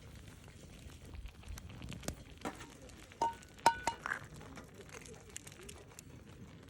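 A cooking utensil clinking against a skillet about five times, each strike sharp and a few ringing briefly.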